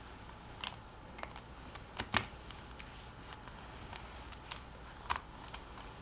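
Faint, scattered clicks and taps of small plastic puzzle pieces being handled, at irregular intervals, the loudest just after two seconds in.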